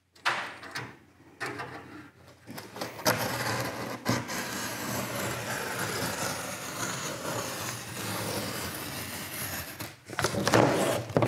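Cardboard being cut along a straightedge for a template: a few light knocks, then a steady scratchy cutting noise for about seven seconds that stops near the end.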